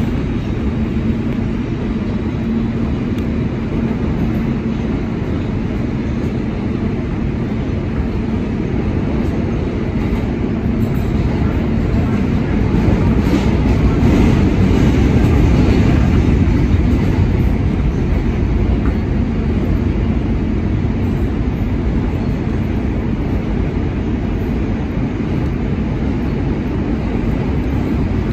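R160 subway train running at speed through a tunnel, heard from inside the car: a steady noise of wheels on rail and car running gear that swells for a few seconds midway.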